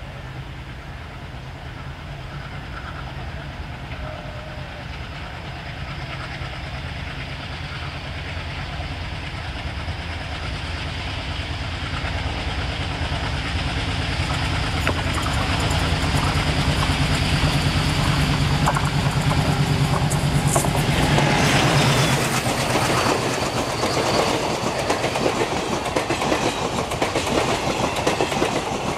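WDM-3A diesel locomotive approaching with the steady low rumble of its ALCO 251 V16 engine growing louder, then passing about two-thirds of the way through. After that comes the clatter of the passenger coaches' wheels rolling by close at hand.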